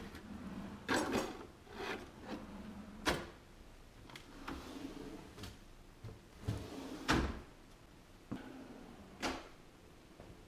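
Shop-built wooden kitchen drawer and pull-out trash bin being slid open and shut, with a series of sharp knocks as drawer fronts and cabinet doors close.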